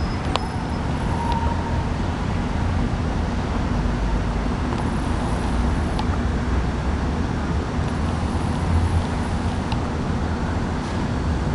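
Air conditioner unit running: a steady low hum under an even rushing noise, with a few faint ticks.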